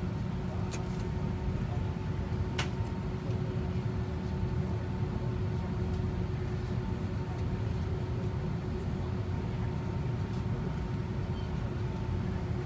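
Steady cabin noise of an airliner taxiing: a low rumble with a constant hum and a fainter, higher steady whine. Two faint clicks come in the first three seconds.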